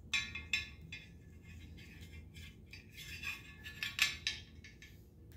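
Light metallic clicks and clinks as a potentiometer is worked into the holes of an aluminium case cover and the cover is handled. There are a few near the start and a cluster around three to four seconds in, with the loudest click about four seconds in.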